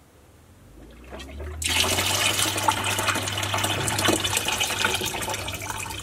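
NEFF dishwasher's drain pump starts with a low hum, and about a second and a half in water begins gushing from the drain hose into a plastic bucket, splashing steadily: the machine draining again now that the blockage in its drain pipe has been cleared.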